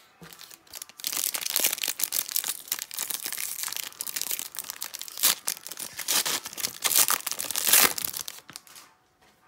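Foil wrapper of a trading-card pack being torn open and crinkled by hand: a dense crackle lasting several seconds, with a few louder rips, the last near the end.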